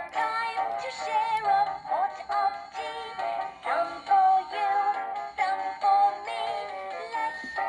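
Fisher-Price learning teapot toy playing a children's song through its small built-in speaker: a recorded sung melody of short, bouncy notes with music behind it.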